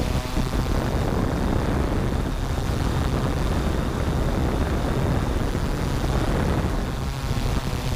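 Yuneec Typhoon G quadcopter's electric motors and propellers buzzing steadily in flight, heard from the GoPro mounted on the drone.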